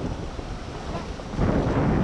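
Rough surf churning and washing over the reef close to the microphone, with wind buffeting it: a low rumbling rush that swells about a second and a half in.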